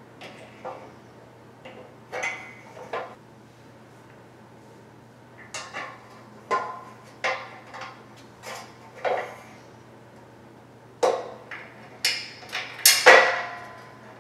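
Steel bed frame parts and hardware clinking and knocking as they are handled and fitted by hand: a scatter of short sharp clicks and clanks, some ringing briefly, with the loudest cluster near the end.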